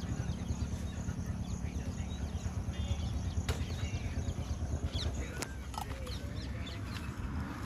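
Outdoor wind rumble on the microphone with scattered short bird chirps and calls, and a couple of sharp clicks in the middle.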